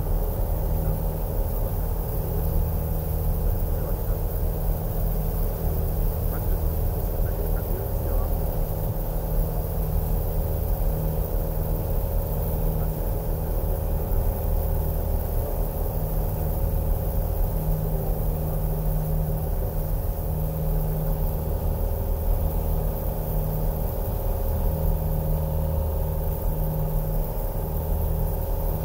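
Single-engine light aircraft's engine and propeller running steadily in cruise flight, a constant low drone heard from inside the cockpit.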